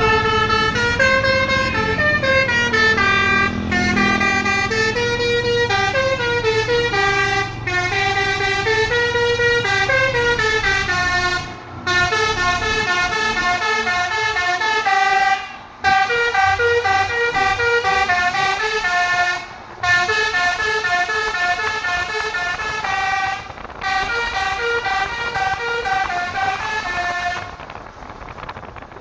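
Basuri multi-tone vehicle horn, driven by a DAV module, playing a fast melody of stepping notes that rise and fall. It breaks off briefly about every four seconds before starting the next phrase.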